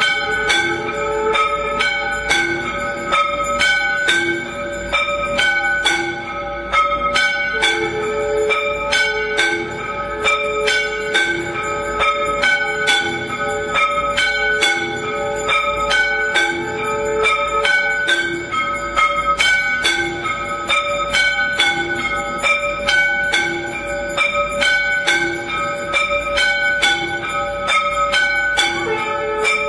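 Temple bells rung continuously for aarti, a dense clangour of rapid strikes with overlapping ringing tones, and a lower-pitched strike repeating about once a second.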